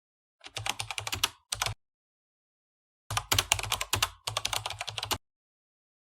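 Rapid clicking in two bursts, the first about a second long and the second about two seconds long, with dead silence between and after.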